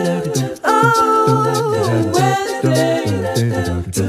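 Music: an a cappella song of layered singing voices over a low sung bass line.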